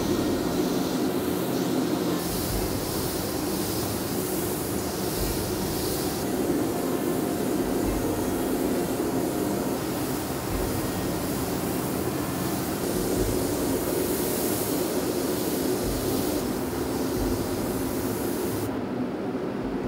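Spray booth extraction fan running steadily, with stretches of hiss from an air spray gun spraying gold paint; the hiss cuts off near the end.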